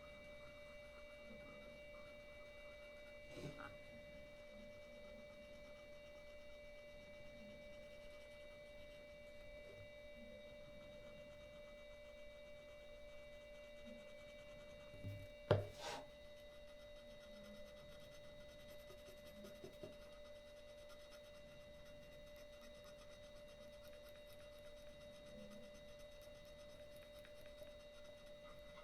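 Faint rubbing of polish into a scratched small camera lens with a soft pad, over a steady faint high whine. There is a small knock about three seconds in and a louder knock about halfway through.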